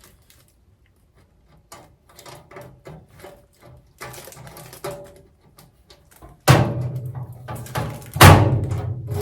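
Small clicks and rattles of sheet-metal cart hardware being handled, then two loud metal thunks over a second apart, the second the loudest, typical of the welding cart's steel cabinet door being shut.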